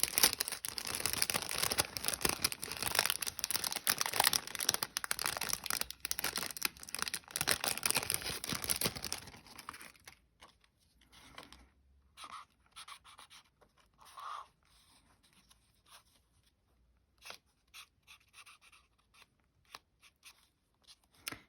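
A pen scribbling rapidly back and forth on paper, colouring small card pieces in black, for about the first ten seconds. After that, only faint scattered taps and rustles.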